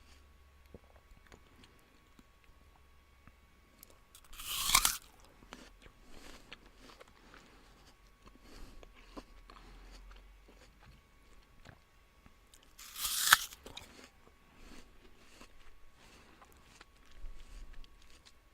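Someone biting into a crisp apple twice, each bite a loud, sharp crunch about eight seconds apart, with quieter crunchy chewing in between.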